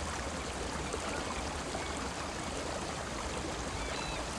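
Steady wash of flowing water around mangrove trees standing in floodwater, with a few faint high chirps near the end.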